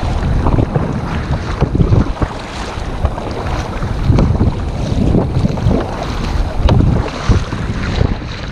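Wind buffeting the microphone in irregular gusts, over water splashing and sloshing against a kayak out on the sea in small waves.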